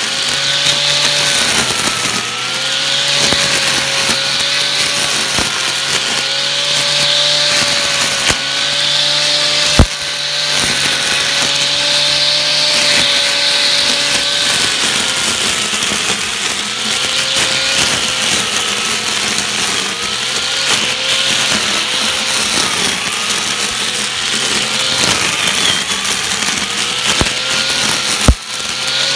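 Homemade electric grass trimmer spinning a nylon cutting line through grass: a steady motor whine that wavers and dips in pitch as it bites into the grass, over a hissing swish of cut grass. Two sharp knocks, one about ten seconds in and one near the end.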